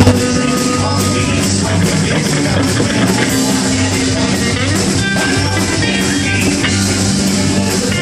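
Live rock band playing loudly: electric guitars and an electric bass over drums keeping a steady beat.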